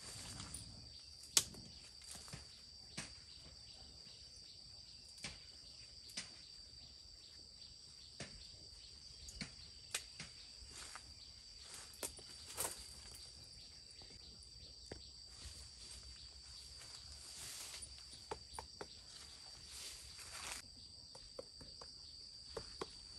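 Faint, steady high-pitched insect chorus, with scattered sharp clicks and snaps over it.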